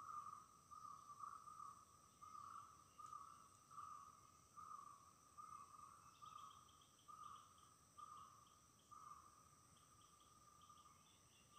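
Faint forest ambience of insects and birds: a steady high insect buzz, a mid-pitched call pulsing about one and a half times a second, and from about halfway in a quick run of short, high chirps.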